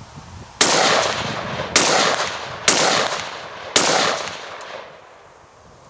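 Four shots from a Sig Sauer P556 pistol in 5.56 NATO, fired about one a second. Each shot trails off in a long ringing echo.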